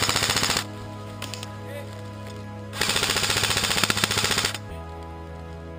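Airsoft rifle firing on full auto: a short burst right at the start and a longer burst of rapid shots about three seconds in. Background music with sustained chords runs underneath.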